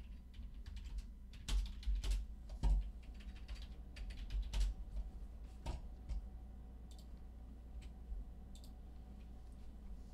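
Irregular typing and clicking on a computer keyboard, busiest in the first half and thinning to a few light taps later, over a faint steady hum.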